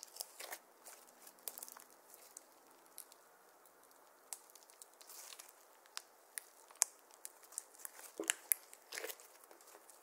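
Glittery slime being kneaded, stretched and folded by hand, giving irregular sticky crackles and pops, with a run of louder pops near the end.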